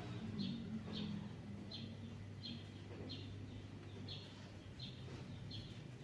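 Cosmos 18-inch industrial wall fan (WIF-1803) running with a steady low motor hum. Over it a small bird chirps again and again, about once every 0.7 seconds.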